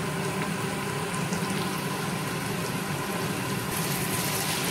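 Prawns, pumpkin and potato pieces sizzling in oil in a kadai, over a steady low hum. Near the end a spatula starts stirring and the sizzle gets louder.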